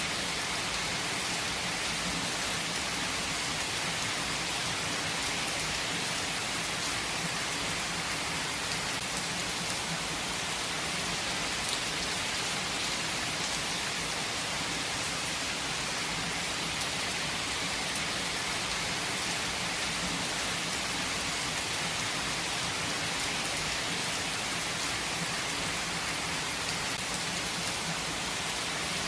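Steady rainfall in a forest, an even hiss of rain with faint scattered drops.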